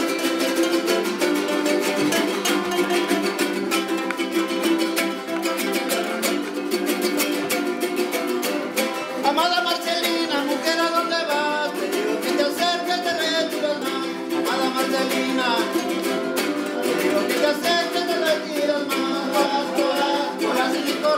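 Son jarocho ensemble playing: several jaranas strummed in a fast, steady rhythm, with singing entering about nine seconds in.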